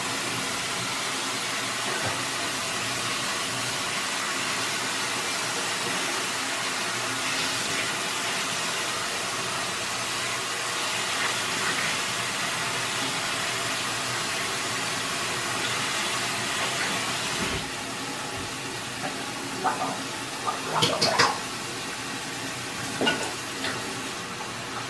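Bathroom sink faucet running steadily into the basin, then turned off about two-thirds of the way through. A few light knocks and clatters at the sink follow.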